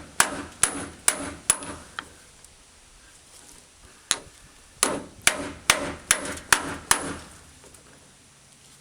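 Hammer blows on a manual impact driver, about two a second: five strikes, a short pause, then seven more, driving a stubborn rusted Phillips screw loose.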